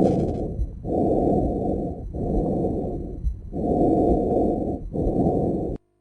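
Lung breath sounds heard through a stethoscope: a low rushing noise in repeated breath phases of just over a second each, with short gaps between them. The sound cuts off suddenly near the end.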